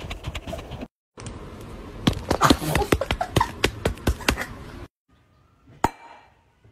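A small ball knocking and rattling around inside a cardboard box on a wooden floor: a quick, uneven run of light clicks and thuds. It dies away about five seconds in, with one last knock near the end.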